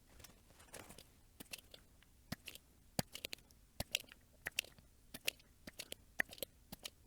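Desoldering diodes from a circuit board with a soldering iron: irregular small crackles and sharp clicks, many of them, as the solder and flux are worked and tools touch the board.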